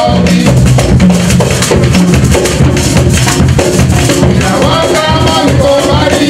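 Kawina band playing live: hand drums and shakers keep a steady rhythm, with voices singing over it near the end.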